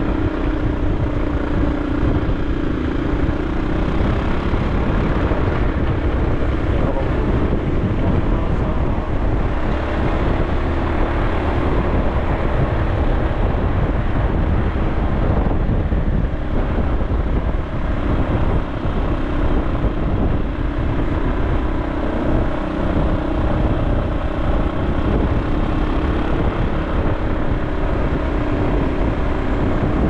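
A vehicle's engine running steadily while driving, over a heavy rumble of road and wind noise; its pitch drifts slightly up and down with the speed.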